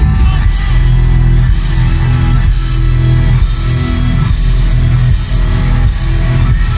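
Black metal band playing live and loud: electric guitars and bass holding low notes that change every second or so over fast drumming, heard from the crowd.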